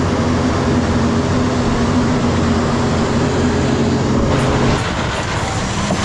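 Concrete pump truck running steadily on the job site, a loud droning engine hum. About five seconds in the steady hum drops away, leaving a rougher noise with faint clicks.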